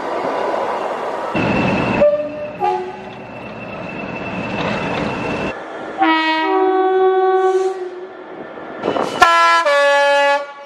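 British train two-tone air horns sounding in several short spliced clips: a quick blip, then a longer two-note blast, then a louder two-note blast near the end, with the rumble of passing trains between them.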